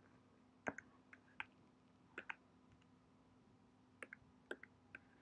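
A handful of faint, sharp computer clicks, some in quick pairs, over near silence, as a red pen colour is picked from an on-screen colour palette.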